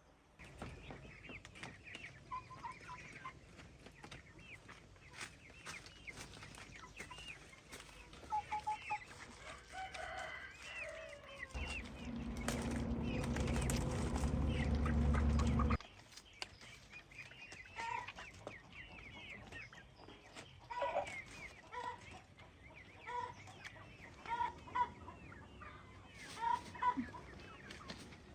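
Chickens clucking, with many short high peeps scattered throughout. Partway through, a loud low rumbling noise comes in for about four seconds and then cuts off suddenly.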